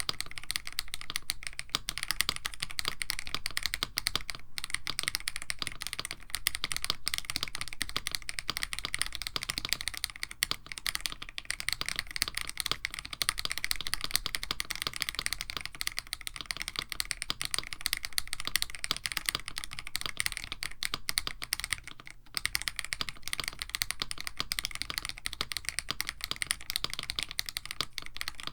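Continuous fast typing on a KBD67 Lite mechanical keyboard with Krytox 205g0-lubed Akko Radiant Red linear switches on an FR4 plate: a dense run of keystroke clacks, with a brief pause about 22 seconds in.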